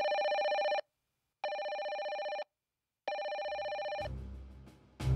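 Electronic telephone ringer trilling in three rings of about a second each, with short gaps between them. Music with a beat comes in near the end.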